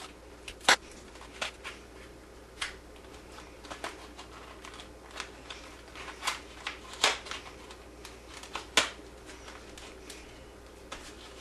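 Retail packaging of a Corsair Dominator RAM kit being opened by hand: tape peeled and packaging handled, giving irregular sharp clicks and crackles, with the loudest snaps about a second in and again near the end.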